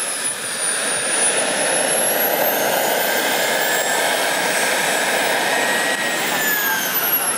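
JetCat SPT 10 turboprop turbine of a giant-scale Skymaster PC-21 model plane, running loud and steady with a high turbine whine and propeller noise as the plane taxis. The whine wavers up and down in pitch, and several tones slide lower about six seconds in.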